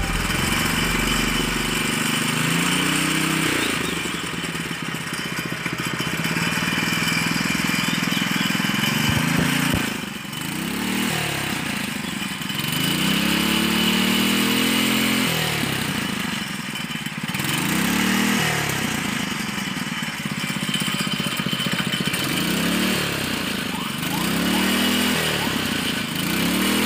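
6.5 HP ketinting longtail boat engine running out of the water, its propeller spinning in the air. It runs fairly steadily at first, then from about ten seconds in it is revved up and let fall back over and over, the pitch rising and dropping every couple of seconds.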